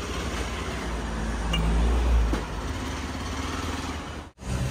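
Hero XPulse 200's single-cylinder engine running as the bike is ridden slowly, briefly getting louder about two seconds in.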